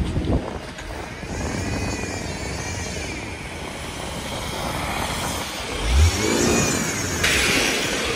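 City street traffic: vehicles passing close by one after another, the loudest pass about six seconds in. A hiss starts about seven seconds in.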